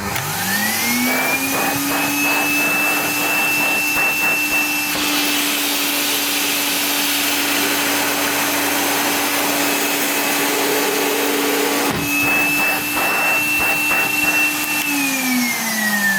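Bagged vacuum cleaner switched on, its motor whining up to speed within about a second, then running steadily with airflow noise and a few handling clicks; about fifteen seconds in it is switched off and its pitch falls as the motor winds down. It runs with its full dust bag held away from the motor's air opening by a spacer, to raise the suction.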